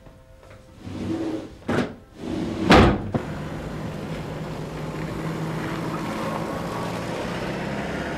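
Two thumps, the second about three seconds in and the loudest, then steady street traffic noise with a low engine hum.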